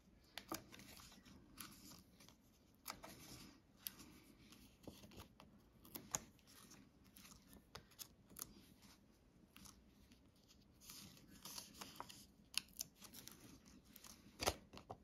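Faint, scattered small clicks and paper rustles of foam adhesive dimensionals being peeled off their backing sheet and pressed onto die-cut cardstock pieces, with a sharper click near the end.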